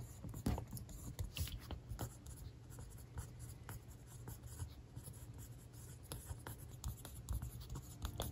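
Mechanical pencil writing on textbook paper: quiet, irregular scratching strokes of the lead with small ticks, over a steady low hum.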